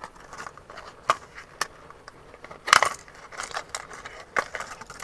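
A fishing lure's clear plastic blister pack being handled and pried open: scattered crinkles and clicks, with one loud snap of plastic a little under three seconds in.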